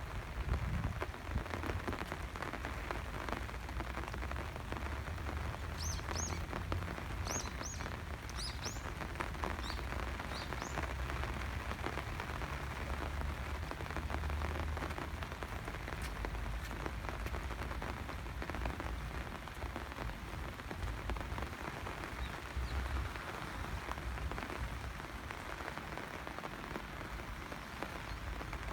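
Steady rain falling, with many separate drops ticking on surfaces and a low rumble underneath. A handful of short, high chirps sound about six to ten seconds in.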